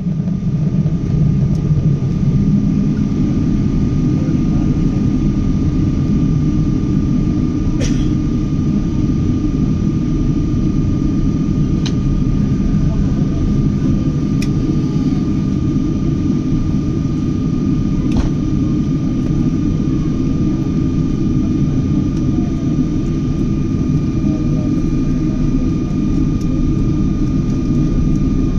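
Boeing 777 jet engines heard from inside the cabin: a loud, steady low rumble with a thin, even whine above it and a few faint clicks.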